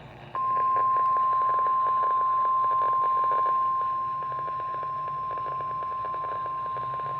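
NOAA Weather Radio 1050 Hz warning alarm tone received over the radio: a single steady high tone that comes on suddenly about a third of a second in, over faint static, and drops somewhat in level around four seconds in. It signals that a warning broadcast is about to follow.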